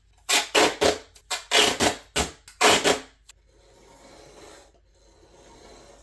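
Duct tape being cut into quarter-inch strips: about eight quick rasping strokes in a row, then a click and faint rubbing of the tape being handled.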